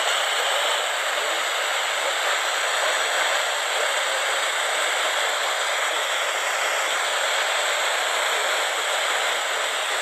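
Steady, loud hiss of radio static with no tones or voice in it.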